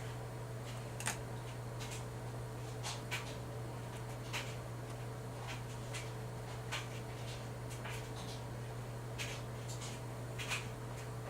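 Dry microfiber cloth wiping side to side across an LCD monitor screen: short, irregular swishes roughly every second, over a steady low hum.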